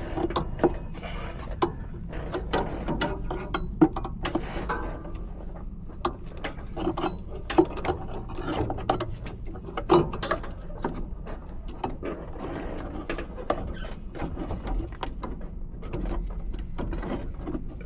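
Hand work on copper refrigerant tubing at a heat pump's reversing valve: a run of irregular metallic clicks, ratchet-like ticks and scrapes as the reamed copper line is worked back into the fitting.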